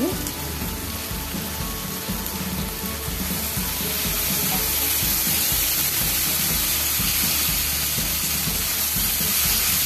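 Onion-tomato masala sizzling as it fries in oil in a kadhai, stirred with a spatula; the sizzle grows louder about three or four seconds in. The masala is nearly done, with the oil starting to separate.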